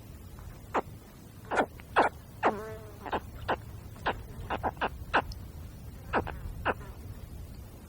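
Spectacled caiman hatchling calling: about a dozen short, sharp chirps at irregular intervals. One longer call about two and a half seconds in falls in pitch, then holds.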